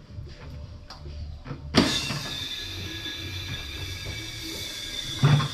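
Air from a reservoir pressurised to 150 psi released into a mountain bike tyre: it starts with a sudden blast about two seconds in, then a steady hiss of rushing air. A short knock comes near the end.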